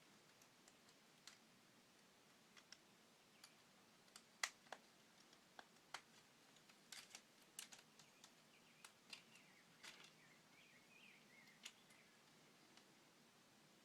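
Faint, irregular clicks and light knocks of plastic K'nex pieces being handled and fitted, over near silence, with the sharpest knock about a third of the way in.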